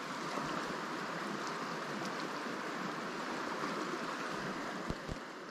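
Steady rushing of a river's flowing water. Two faint low knocks come near the end.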